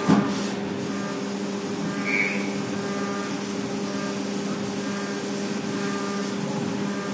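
Haas DT-1 CNC machining center running while machining 6061 aluminum: a steady hum over a hiss, with a brief higher squeal about two seconds in.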